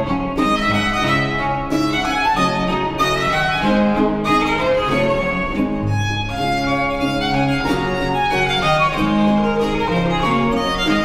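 Baroque trio music: a baroque violin leads the melody over a baroque cello and baroque guitar accompanying.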